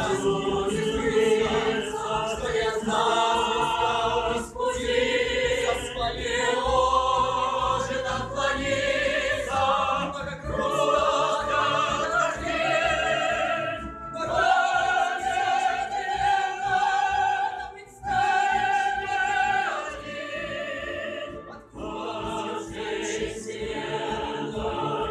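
Classical choral music: voices sing long, held notes with vibrato in phrases a few seconds long, with brief breaks between phrases.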